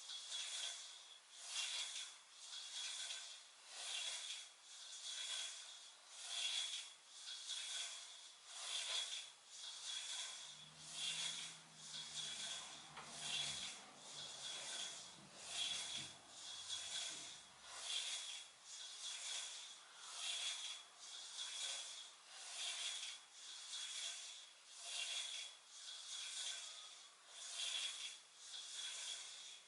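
Rhythmic rubbing, about one stroke a second in a steady beat, in time with repeated weighted crunches.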